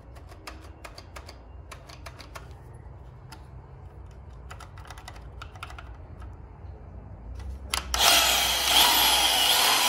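Trigger switch of a Milwaukee portable bandsaw clicking many times without the motor starting, then about eight seconds in the motor starts and runs loudly. The bad power switch only works intermittently.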